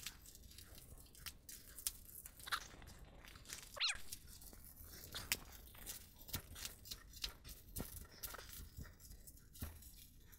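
Wrapping paper crinkling and tearing softly in scattered faint crackles as a small gift is unwrapped by hand, with a short squeaky glide about four seconds in.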